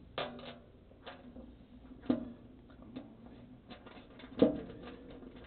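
Irregular clicks and knocks of metal parts and a hand tool as a square drive shaft is fitted into a bowling pinsetter's setting table. The loudest knock comes about four and a half seconds in.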